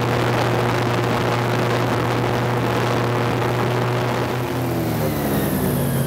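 Airboat engine and propeller running steadily at speed, a loud drone with a rushing hiss, easing slightly in pitch near the end.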